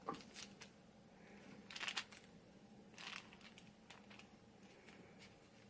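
Faint, scattered crunches and scrapes of a metal fork cutting into an Oreo-topped brownie, the loudest cluster about two seconds in and another about three seconds in.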